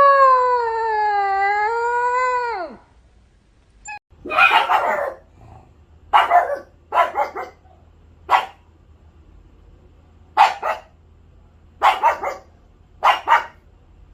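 A dog howls one long wavering call that drops in pitch as it ends. Then a dog gives a string of about seven short, sharp barks at uneven intervals.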